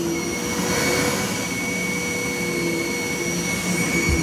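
Vacuum cleaner motor running steadily, a constant rushing noise with a high whine.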